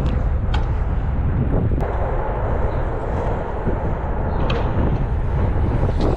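Wind buffeting the microphone of a bike-mounted action camera while it rides fast over an asphalt pump track, a steady low rush mixed with tyre noise, with a few light clicks from the bike.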